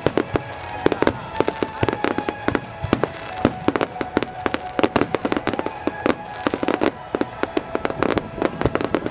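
Aerial firework shells bursting in rapid succession: a dense run of sharp bangs and crackles, several a second.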